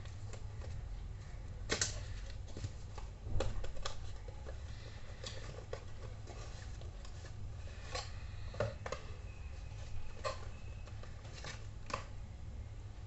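A paperboard charger box being opened and emptied by hand: scattered taps, clicks and scrapes of the flaps and inner tray, the loudest about two and three and a half seconds in, over a steady low hum.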